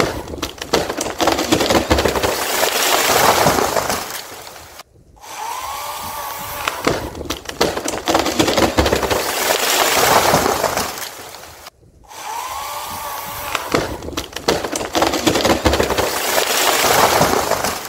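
A big silver maple limb cracking and breaking off, then crashing down through the branches, right after an Oregon 18" electric chainsaw has barely touched the cut. The same stretch repeats three times, each time with a brief whine of the saw, a run of sharp cracks and a loud crash that swells and then fades.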